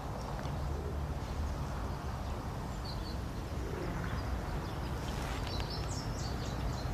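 Outdoor ambience: a steady low rumble with a few short bird chirps, one about three seconds in and a cluster near the end.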